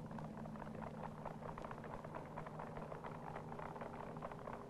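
Crowd applauding, a dense, irregular patter of clapping, over a steady low hum.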